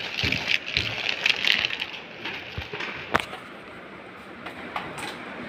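Clear plastic wrapping rustling and crinkling as it is handled, loudest in the first two seconds. A sharp click comes about three seconds in and another near the end.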